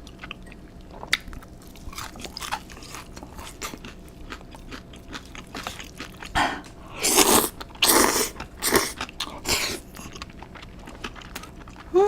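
Close-miked eating: chewing with small wet mouth clicks, then about five loud crunchy bites between about six and ten seconds in.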